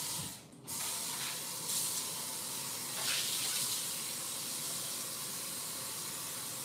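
Kitchen faucet running water into a plastic tub in the sink: a steady spraying hiss that starts under a second in, after a brief first burst.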